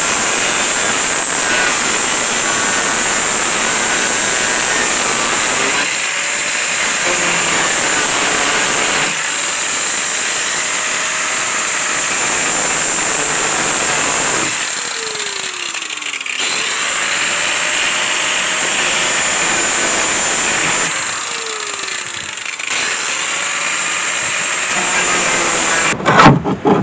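Corded angle grinder with a cutting disc cutting through the steel rocker panel of a 1999 Renault Mégane coupé, running steadily with a high whine. The motor eases off and picks back up a few times as the cut is worked. Near the end the grinder stops and a few loud metal knocks follow.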